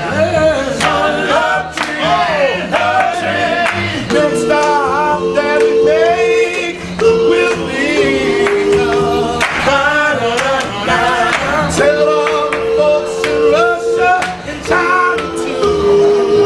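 Male doo-wop vocal group singing in close harmony: backing voices hold long chords under a bending lead voice, over handclaps and an upright double bass.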